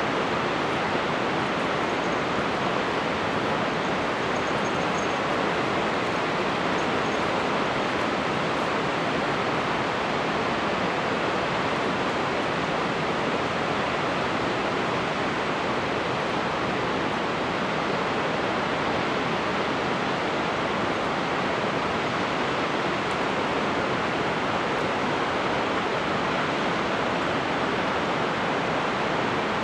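Steady, unbroken rush of falling water from Shōmyō Falls, a waterfall with a 350 m drop.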